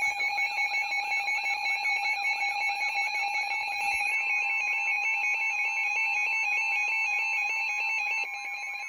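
Weather radio Emergency Alert System alert tones: loud steady alarm tones with a fast repeating warble over them, and a further steady tone joining about four seconds in. This is the alert signal that comes before a severe thunderstorm warning is read.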